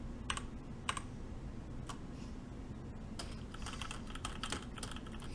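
Keys being pressed on a mechanical keyboard with Gateron red linear switches: a few separate key presses, then a quicker run of typing from about three seconds in.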